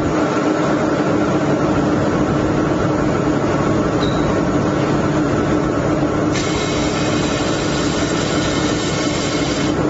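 Fiber laser welding machine running while welding thin brass plate: a steady hum with hiss, and a higher hiss joining in from about six seconds in until just before the end.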